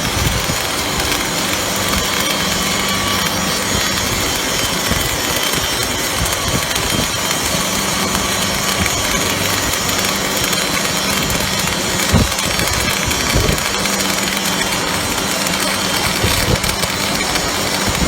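MIG/MAG welding arc running continuously from a MIG/MAG 500 welder: a steady crackling hiss over a buzzing hum, with a few sharper cracks.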